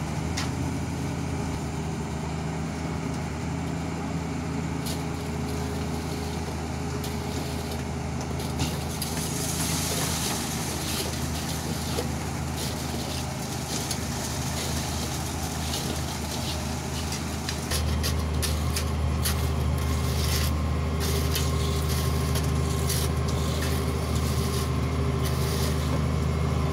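Diesel engine of a Hitachi Zaxis 350 hydraulic excavator running steadily, getting louder suddenly about two-thirds of the way through.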